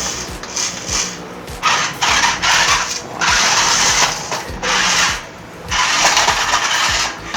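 Toy RC rock crawler's small electric motor and gearbox whirring in short bursts as the throttle is worked on and off, about four runs of one to one and a half seconds each.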